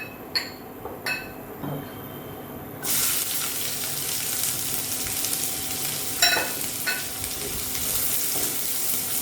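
A few ringing metal clinks of a utensil on the pan, then about three seconds in, sliced onion hits hot oil and starts sizzling, frying steadily from then on. A couple more clinks of the spatula against the pan come near the middle.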